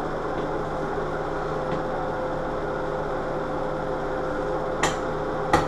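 Steady mechanical hum with a faint whir. Two short clicks come near the end, from the wall switch being handled and pressed into its box.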